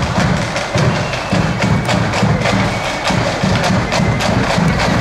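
Marching band side drums playing a marching beat, a dense run of sharp, crisp strokes over a heavy low pulse.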